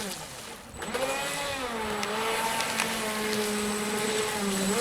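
Radio-controlled speedboat's motor whining at high revs. The whine dips in the first second, climbs about a second in as the throttle opens, then holds a steady pitch.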